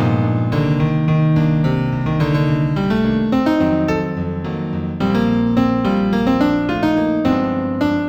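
New-age piano instrumental in B minor: a busy, even run of piano notes over sustained low bass notes.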